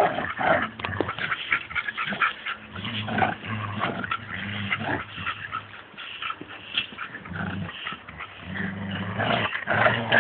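Two dogs growling in play as they pull against each other in a tug of war over a toy: repeated low growls about a second long, with short scuffling noises between.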